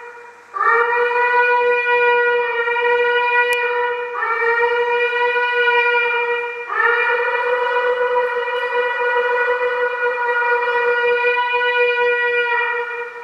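A shofar (ram's-horn trumpet) blown in three long, steady blasts, each beginning with a short upward swoop in pitch, the last one the longest.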